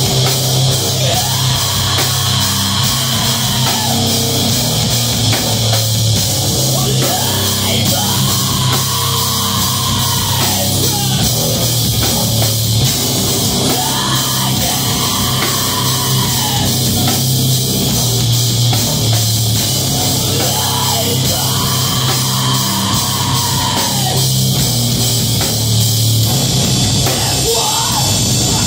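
Alternative-metal band playing live on electric guitar, bass guitar and drum kit, loud and steady. A rising-and-falling melodic phrase comes back about every six or seven seconds.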